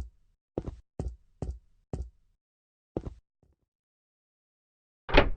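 A series of short, sharp knocks, about two a second, thinning out about three seconds in; after a pause, a single louder knock comes near the end.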